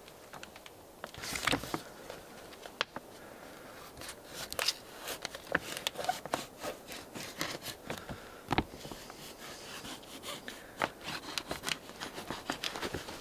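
Black plastic sheeting crinkling and rustling as it is pulled taut and folded down over a roof edge, with many sharp clicks throughout and one louder knock about eight and a half seconds in.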